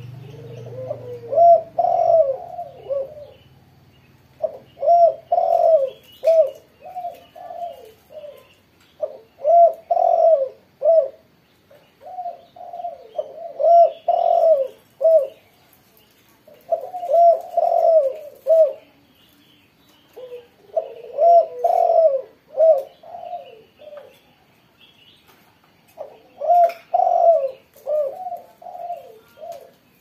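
Caged spotted dove (tekukur) cooing vigorously, a phrase of several rhythmic coos repeated every few seconds, about seven phrases in all.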